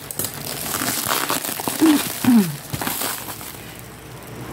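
Bubble wrap and plastic wrapping crinkling as a cardboard parcel is handled, quieter in the last second, with two short falling tones about two seconds in.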